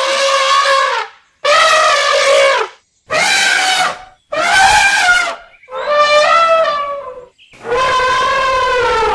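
Elephants trumpeting: a run of about six loud trumpet calls, each a second or so long, separated by short silent breaks.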